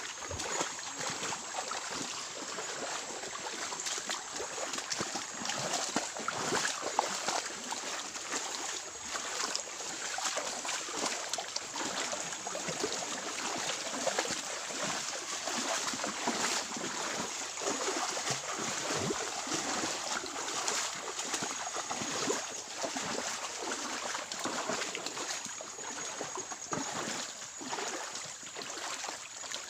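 Shallow stream water splashing and swishing as people wade through it, over the steady rush of the flowing stream.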